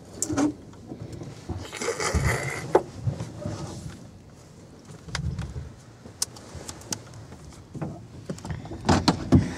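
Handling noise inside a parked helicopter's cabin: scattered clicks and knocks and a short stretch of rustling, with no engine running.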